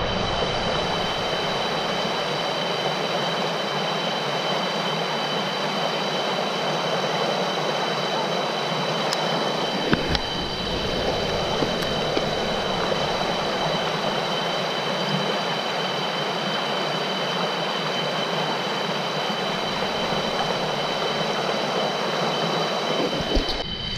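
Stream water rushing over rocks and shallow rapids, a steady, even rush, with a single click about ten seconds in.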